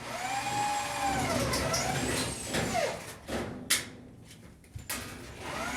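Motor vehicle passing by, its engine note rising and then falling over about three seconds. A sharp knock follows, and another vehicle approaches near the end.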